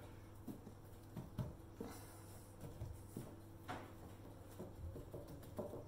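Chickpeas bundled in a cotton tea towel, rubbed and rolled by hand against a kitchen bench to loosen their skins: faint, irregular rustling of cloth with soft knocks of the chickpeas shifting inside.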